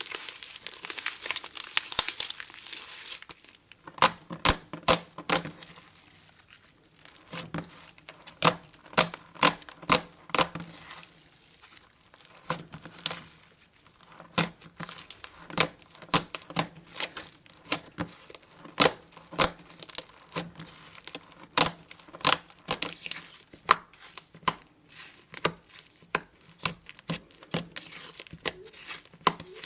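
Slime being squeezed, pressed and stretched by hand, making a dense crinkling for the first few seconds and then sticky clicks and pops, several a second, with brief pauses.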